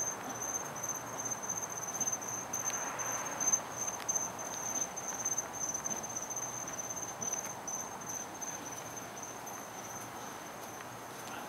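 Night insects, crickets, trilling in one steady high-pitched note, with a soft shuffling noise underneath that is loudest about three to four seconds in.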